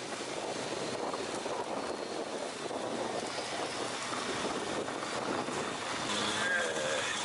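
Steady rushing wind and road noise from a vehicle driving on a dirt road. There is a brief warbling sound about six and a half seconds in, and a faint high whine near the end.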